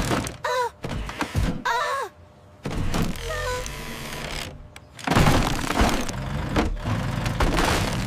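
Cartoon crashing sound effects of a brick wall cracking and breaking apart: a string of thuds and crashes, with two short high cries in the first two seconds. A louder crash comes about five seconds in.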